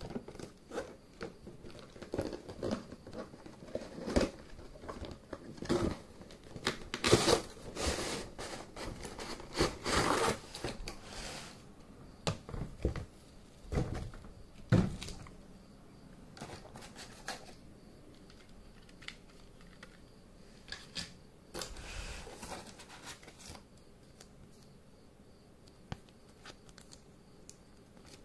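Unboxing handling noise: a cardboard box and its flaps rubbed and knocked, plastic toy track parts shifting inside, and plastic packaging crinkling and tearing in irregular bursts. It is busiest in the first half and thins out to sparse rustles later.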